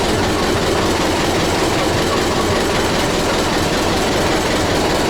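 Tractor diesel engine idling steadily, with no knock: the second-cylinder knock has gone, which the owner puts down to a faulty valve keeper (collet).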